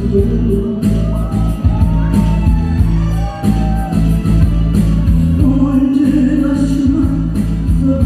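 Loud backing music with a steady beat and a heavy bass line, with a voice singing a melody over it.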